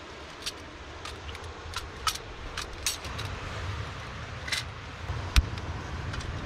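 Light metallic clicks and clinks of a portable cassette-gas camping stove being handled and set up, with a low rumble from about halfway through. A sharp click near the end as the burner is lit.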